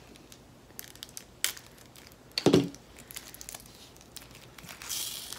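Small plastic bag of diamond painting drills being handled and crinkled, with scattered light clicks, one short louder sound about two and a half seconds in and a brief rustle near the end.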